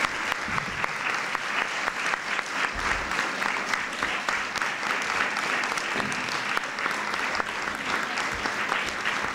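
An audience of schoolchildren and adults applauding in a hall, a steady round of dense hand-clapping.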